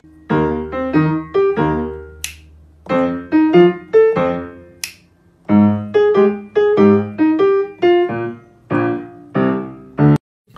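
Piano music playing short phrases of separate notes with brief gaps between them. Two sharp clicks fall about two and five seconds in. The music cuts off abruptly just before the end.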